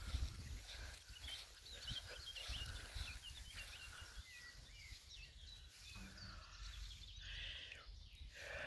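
Faint chirping of small songbirds, thickest in the first half, with wind rumbling on the microphone.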